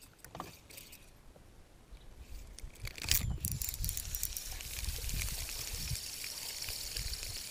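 About three seconds in, a sharp swish as a spinning rod is cast. It is followed by a steady trickling, pouring hiss of water.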